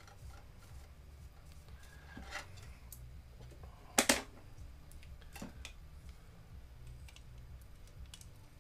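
Light clicks, taps and brushing as the projector's small plastic-and-metal iris assembly is handled and cleaned with a paintbrush. A sharp double knock about four seconds in, as something is set down on the bench, is the loudest sound. A low steady hum runs underneath.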